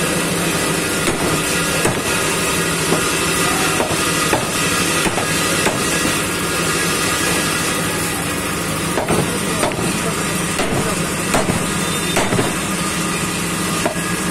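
A heavy butcher's cleaver chops beef on a round wooden chopping block, a sharp knock at irregular intervals of about one a second, over a steady background hum.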